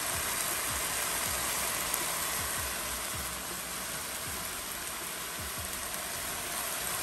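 Diced bell peppers and onions sizzling steadily in oil in a hot frying pan.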